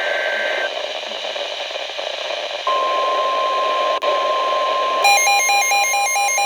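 Weather radio receiver static hiss. About two and a half seconds in, a steady single-pitch warning alert tone begins and holds. Near the end, a rapid warbling pattern of stepping tones comes in over it.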